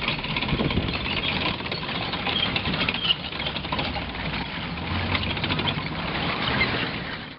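M5A1 Stuart light tank's twin Cadillac V8 engines running close by, with a dense rapid rattle over a low steady hum. The sound cuts off abruptly at the very end.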